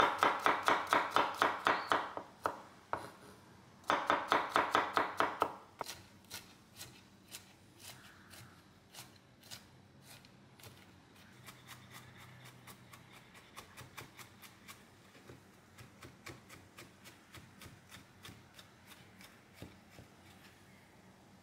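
Chef's knife chopping peeled garlic cloves on a wooden cutting board. Two quick runs of loud, rapid knocks come in the first few seconds, then lighter, slower, uneven chops as the garlic is minced fine.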